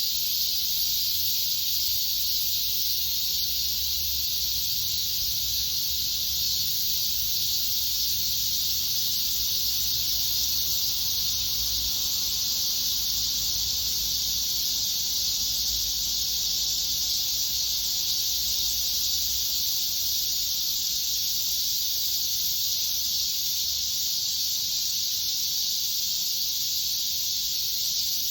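Cicadas singing: a continuous, steady high-pitched buzzing drone.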